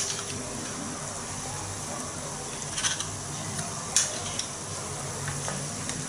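Balls of batter deep-frying in a small saucepan of hot oil, a steady sizzle, with a few sharp clicks of a metal spoon against the pan as more batter is spooned in, at the start and again about three and four seconds in.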